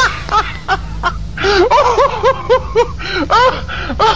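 Rapid high-pitched laughter: a long run of short 'ha' syllables, about four a second, with a brief break about a second in.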